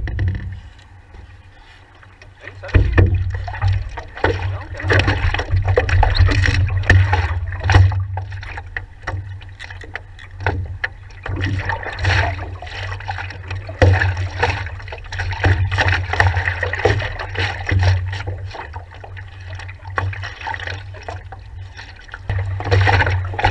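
Paddle strokes and water sloshing and splashing against a stand-up paddleboard, heard close up from the board's deck, with a low rumble under it. Quieter for the first two seconds, then irregular splashes.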